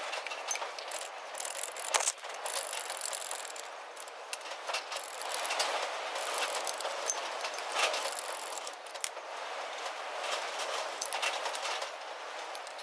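Steel parts being handled and set up on a hydraulic shop press: scattered metal clinks and rattles over a steady hiss.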